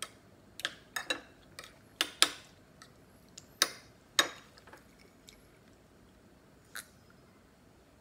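Metal spoon clinking against a ceramic bowl of rice and mung bean stew as food is scooped and mixed. There are several sharp clinks, often in quick pairs, through the first half, then one softer click near the end.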